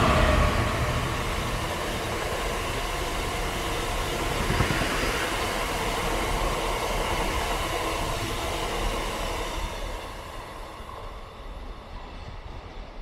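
Freight train of open box wagons rolling past close by: a steady rumble and rattle of wheels on the rails, loudest at the start, that dies away about ten seconds in as the last wagons go by.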